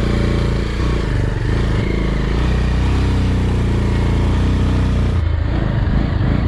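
Motorcycle engine running steadily as the bike rides along, under a steady rush of wind and road noise.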